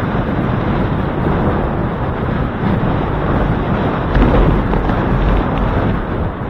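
Wind buffeting the microphone of a handlebar-mounted camera on a moving bicycle: a loud, deep, steady noise that swells for a gust about four seconds in.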